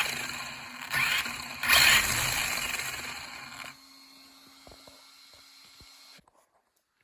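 Scraping and clattering of small plastic and metal RC-car parts being handled and pushed together, in three loud bursts that fade out after about four seconds, followed by a few faint ticks.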